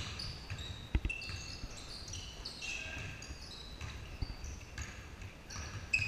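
A basketball bouncing on a hardwood gym floor, a few dull thumps, with sneakers squeaking on the floor in many short, high chirps as players run and cut. The sound carries the echo of a large gym.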